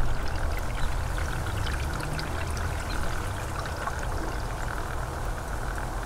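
Pentair CVA-24 pool and spa valve actuator's gear motor running, slowly turning the diverter valve, over a steady rushing noise with small scattered ticks. The actuator is turning the valve back in the direction it would not go before a new microswitch was fitted.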